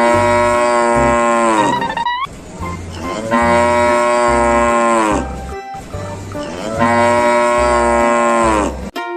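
Cow mooing: three long moos of about two seconds each, over background music with a steady low beat.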